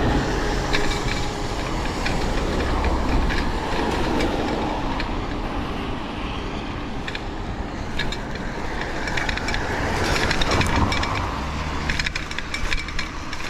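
Steady wind and tyre noise from riding a bicycle, with scattered rattles and clicks from the bike over the road surface.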